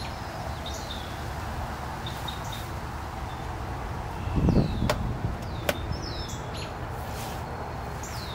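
Outdoor ambience: a steady rushing noise with short, descending bird chirps now and then. A brief louder whoosh and a couple of sharp clicks come about four and a half seconds in.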